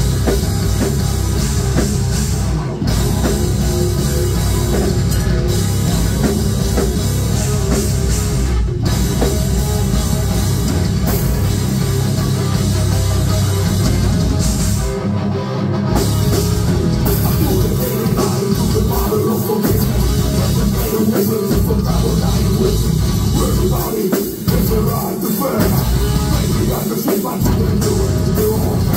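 Heavy metal band playing live: distorted electric guitar, bass guitar and drum kit, dense and loud, with a few short breaks in the riff.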